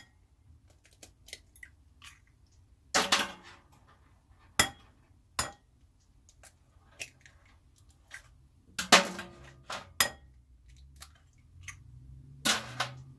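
Eggs tapped against the rim of a ceramic bowl and cracked open: sharp knocks in clusters a few seconds apart, with lighter clicks of shell between.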